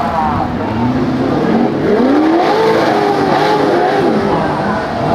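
Offroad 4x4 engine revving up and down repeatedly, its pitch rising and falling in long swells, over a steady hiss.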